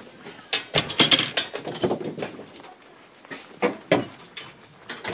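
Irregular knocking, clicking and rattling of hardware being handled, in a busy cluster about a second in and a shorter one just before four seconds.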